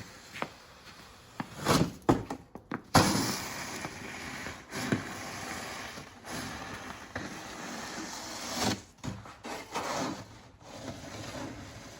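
Hand-pushed snow plow scraping through wet, heavy snow over the pavement, in several pushes that each start suddenly, with short breaks between them.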